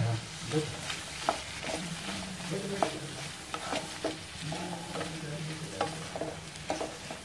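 Wooden spatula stirring boiled chickpeas in a steel kadai, with irregular scrapes and knocks against the pan about once a second, over a light sizzle of the spices cooking.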